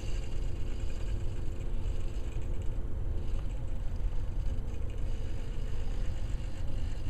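Robot wheel drive made of hobby servos modified for continuous rotation, whirring steadily through their gear trains as the robot turns in place, over a steady low rumble.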